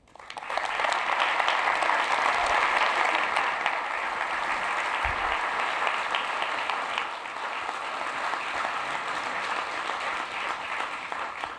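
Audience applauding in a large hall, swelling within the first half second and holding steady, easing off slightly toward the end.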